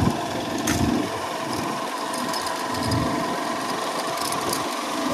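Motorcycle engine running while riding off-road, a steady mechanical drone with scattered short clicks.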